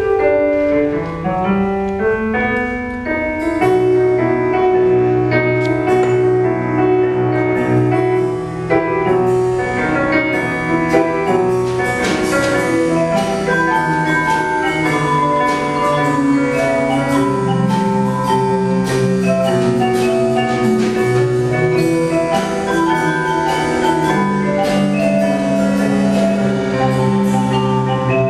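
Percussion ensemble with piano playing a lively tune: mallet percussion carries the melody over piano chords and bass. Sharper drum-kit strokes join about twelve seconds in.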